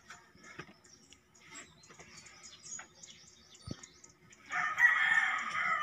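A rooster crows once near the end, one long call of about a second and a half; before it, only faint clicks of handling.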